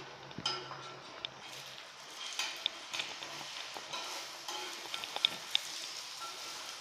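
Egg sizzling as it fries on a flat tawa. From a couple of seconds in, a metal spatula scrapes and taps on the pan as the egg is broken up and scrambled.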